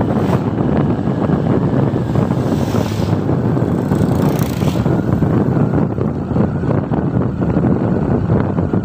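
Heavy wind noise buffeting the microphone of a moving motorbike, with the engine and road noise running beneath. A brighter hiss about three and four seconds in, as oncoming scooters go past.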